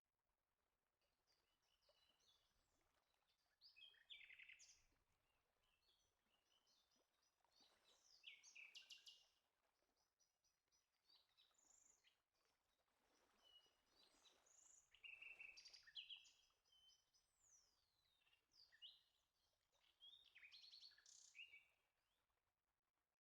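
Faint birdsong: scattered high chirps and short rapid trills from small birds, coming in bursts with pauses between.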